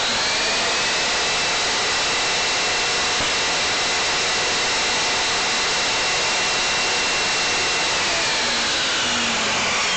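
Table saw running steadily at full speed: a loud, even rush of motor and spinning blade with a faint whine.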